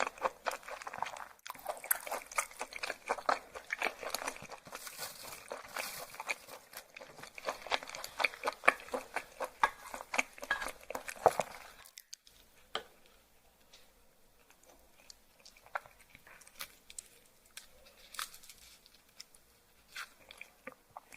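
Close-up chewing of raw yellowtail sashimi: a dense run of crisp, wet crunching clicks that thins out about halfway through to quieter, scattered mouth sounds.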